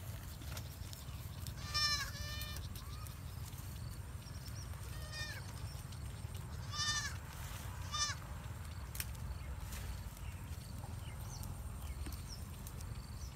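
Kid goat bleating in short, high calls, about five times, with a steady low rumble underneath.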